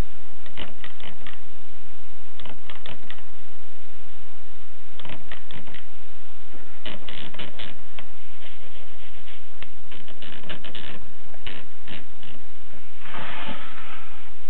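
Continental typewriter being typed on: keys strike in short, irregular bursts of sharp clacks, with a longer rasping mechanical sound near the end.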